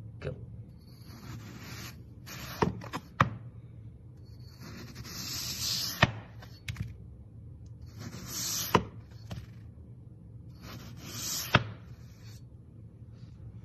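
Wavy crinkle-cut knife slicing down through a block of green floral foam: each cut is a scratchy, crunchy hiss about a second long that ends in a sharp tap as the blade meets the wooden board. The cuts repeat about every three seconds, four of them.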